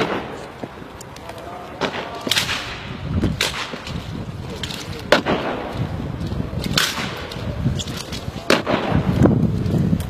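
A squad of soldiers marching in step on a paved square, their boots striking the ground together in sharp, loud stamps about every second and a half, with shouted voices between the stamps.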